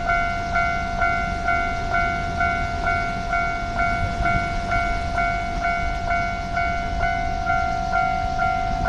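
Japanese railway level-crossing warning bell ringing, an electronic clang repeating about twice a second, over a low rumble.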